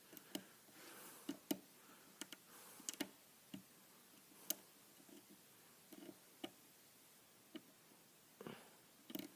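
Faint, irregular clicks of a short-hook lock pick working the pins of a pin-tumbler challenge lock under very light tension, single-pin picking.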